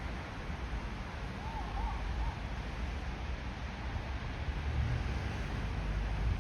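Steady low rumble of city ambience in a snowy park, with three faint short chirping notes about a second and a half in.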